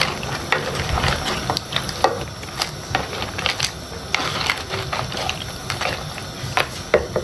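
Irregular light clicks and clatters of a utensil against a pot while seafood boil is stirred and tossed in its sauce.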